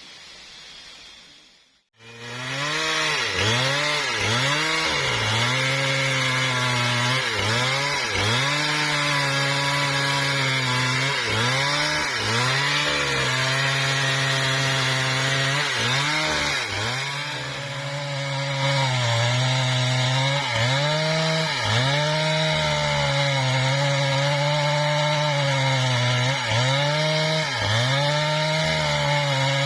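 Husqvarna 395XP two-stroke chainsaw running at full throttle while ripping lengthwise through mahogany, its pitch dipping every second or two as the chain loads in the cut. It starts abruptly about two seconds in, after a faint hiss.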